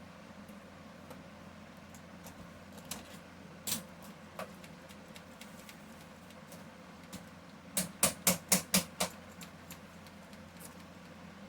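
Keys on a Livetech computer keyboard being pressed while it is tested for dead keys: a few single clicks, then a quick run of six clicks about eight seconds in.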